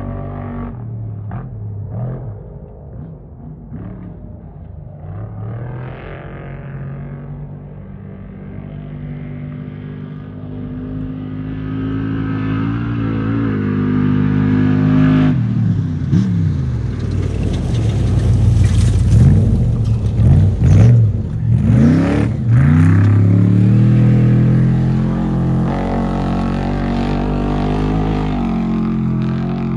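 Off-road race vehicle's engine growing louder as it comes on. Its pitch swings quickly up and down with the throttle at its loudest, about 16 to 23 seconds in, then it runs on more steadily.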